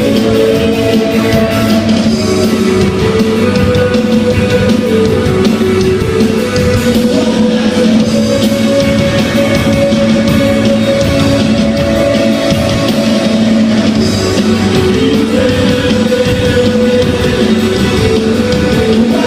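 Rock band playing live: electric guitars and a drum kit playing a riff of held notes, loud and steady throughout.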